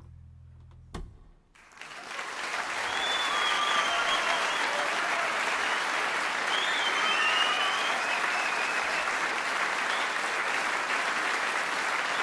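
The last low double-bass note fades out, and there is a single knock about a second in. Then an audience applauds with whistles, building over a couple of seconds and then holding steady.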